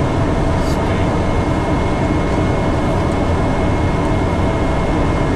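Steady cockpit noise of an airliner on final approach: rushing airflow and a constant low hum, with a thin high tone above it.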